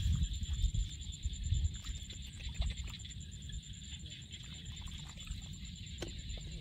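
Hand digging and scooping in wet mud and shallow water, with low thuds and squelches strongest in the first two seconds, then lighter. A steady, fast-pulsing high-pitched insect trill runs behind it.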